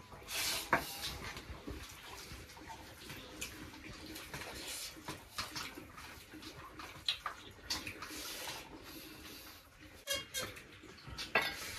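Scattered clinks and knocks of dishes and utensils, with brief splashes of water.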